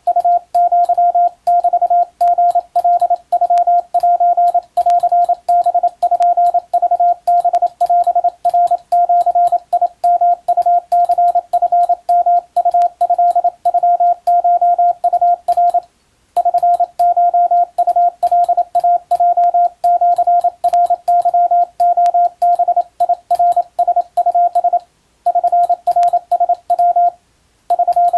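Morse code sidetone, a single steady tone of about 700 Hz keyed in dots and dashes, sending Japanese wabun code telegram text. The sending breaks off briefly a few times between groups, once a little past the middle and twice near the end.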